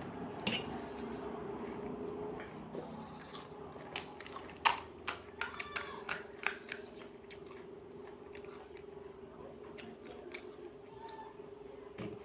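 A person eating pani puri close to the microphone: crisp puri shells crunching, with a run of sharp cracks between about four and seven seconds in, then softer wet chewing. A low steady hum runs underneath.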